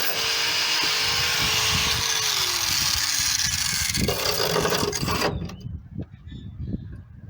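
Angle grinder cutting through broken steel bolts, its whine dropping in pitch under load, then shutting off about five seconds in. A few light knocks follow.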